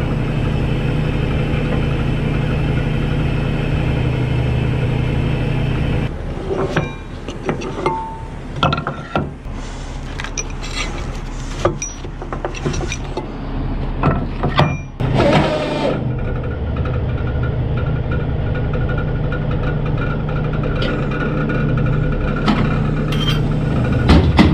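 A heavy truck's engine running steadily, with a stretch of irregular knocks and rattles in the middle.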